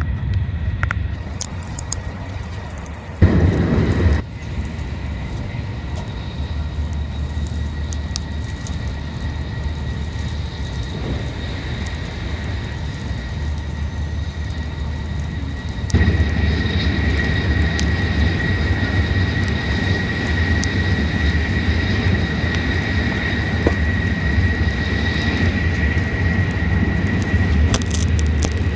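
Shinkansen running noise heard inside the passenger cabin: a steady low rumble. About three seconds in, a sudden loud rush lasts about a second; about halfway through the noise steps up and a thin high whine runs on with it.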